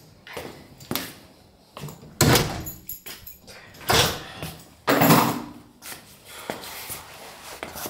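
Entrance door being shut and sneakers stepping on a tiled floor: a handful of separate knocks and scuffs, the loudest about two, four and five seconds in.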